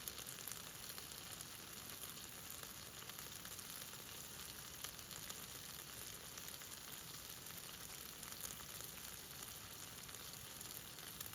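Meat sizzling as it fries in hot fat: a steady hiss with frequent small pops and crackles.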